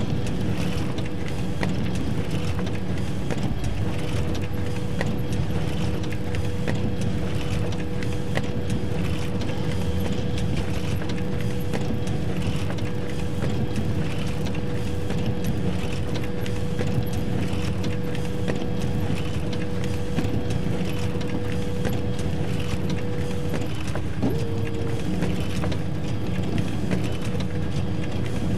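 Photocopier running: a steady mechanical hum and rumble with a constant whine over it, the whine breaking off briefly about three-quarters of the way through.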